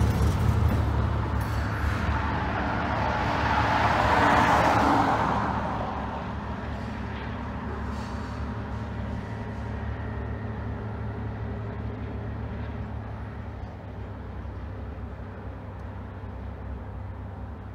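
A freight train moving away: a low, steady rumble from the cars and their small diesel switcher pulling up the grade. A louder rushing swell comes about four seconds in and fades over the next two seconds.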